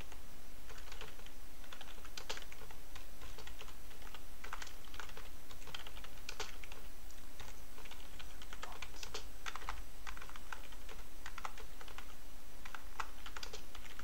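Typing on a computer keyboard: irregular keystrokes in quick runs with short pauses, over a steady low hum.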